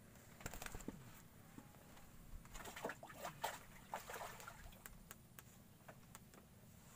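Faint handling noises: irregular clicks and rustling in two clusters, a short one about half a second in and a longer, denser one around three to four seconds in, then a few scattered ticks.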